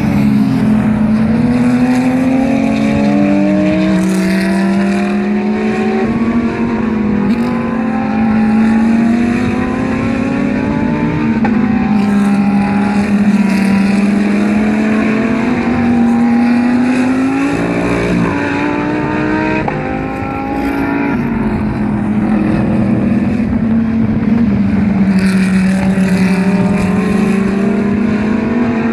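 GT race car engines running hard, one car after another. Each rises in pitch through the gears, with a sharp drop at each upshift, all without a break.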